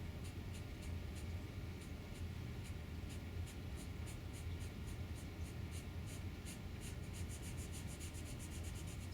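Metallic felt-tip marker scratching across a craft piece in light, repeated back-and-forth strokes, about three a second at first and quickening near the end, over a steady low hum.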